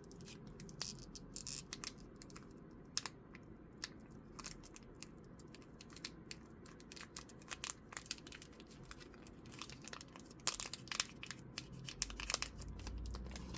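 Crinkling and tearing of foil booster-pack wrappers and packaging while Pokémon card packs are handled and opened, with many small sharp crackles throughout.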